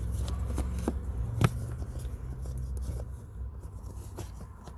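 Light clicks and scraping of hard plastic as the cabin air filter access cover is worked into place, with one sharper click about a second and a half in, over a low steady rumble.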